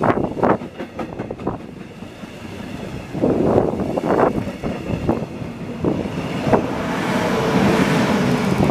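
Double-deck push-pull passenger train passing close by: wheels knock irregularly over rail joints, then a steady rushing noise grows near the end as the electric locomotive at the rear goes by.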